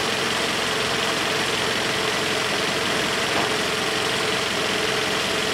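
The 2.0-litre four-cylinder petrol engine of a 2015 Toyota RAV4, warmed up and idling steadily.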